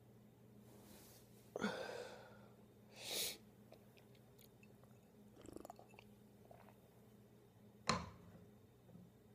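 A person's close-up breath and mouth sounds: a few short, sudden sharp intakes or gulps and one hissing breath, with faint mouth clicks between them, over a low steady hum.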